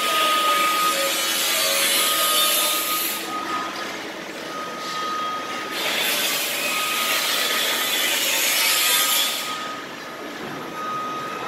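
Construction-site power tool cutting or grinding, a harsh hiss in two long spells of about three seconds each. A machine's warning beep sounds on and off throughout.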